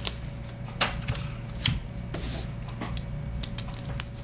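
Clear tape being pulled from a desk dispenser and pressed down onto paper: irregular sharp clicks and taps with paper handling, and a short hiss about halfway through. A faint steady hum runs underneath.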